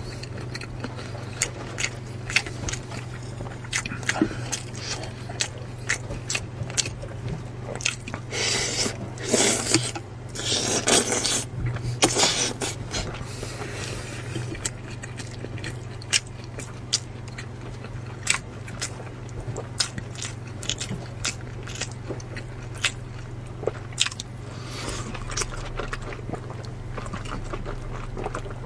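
Close-miked eating: chewing with frequent sharp mouth clicks and smacks, and a few seconds of louder rushing noise about a third of the way in, over a steady low hum.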